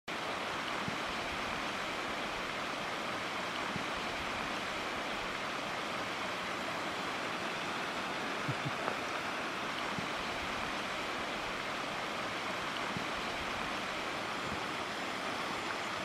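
Mountain waterfall, a thin fall of water down a rock cliff, giving a steady, even rush of falling water.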